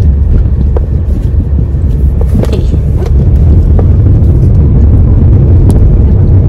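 Loud, steady low rumble inside a car's cabin, a little louder from about three seconds in, with a few faint ticks from a cardboard phone box being handled.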